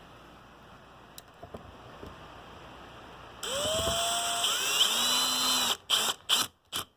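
Cordless drill/driver with a Torx bit driving screws. It starts about halfway through with a rising motor whine, runs for about two seconds, then gives several short bursts near the end.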